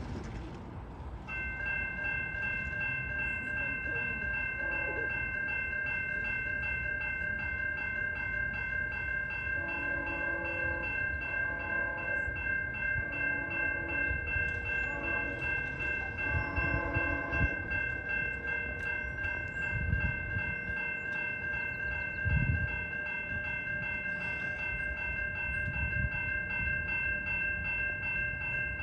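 GO Transit commuter train led by cab car 253 approaching and passing, the cab car's chime horn sounding a series of blasts around the middle while the train rumbles, with louder thumps in the second half. A steady high-pitched ringing starts about a second in and carries on throughout.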